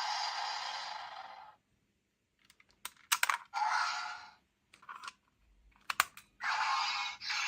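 Electronic sound effects from a Dream Three Kingdoms toy transformation device's small speaker. One effect cuts off about a second and a half in. Then come several sharp plastic clicks and short bursts of sound, and another effect with falling sweeps starts about six seconds in.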